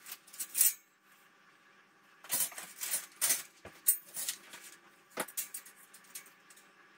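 Metal wire shelving parts clinking and knocking together as they are handled and fitted, a scattered run of sharp metallic clinks and taps that is busiest in the middle.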